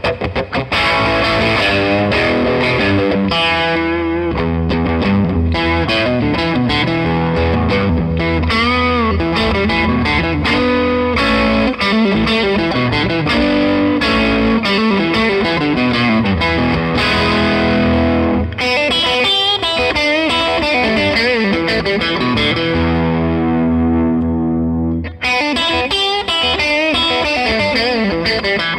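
Electric guitar played through a 15-watt, two-EL84 valve combo amp in its natural power-amp overdrive mode, with reverb added: a crunchy, mildly distorted mix of single-note lines and chords. About 22 seconds in, a chord is held and left to ring out, and the playing starts again about three seconds later.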